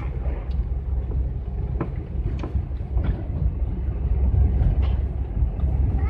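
In-cab noise of a GAZelle van driving on a town street: a steady low engine and road rumble, with a few faint clicks.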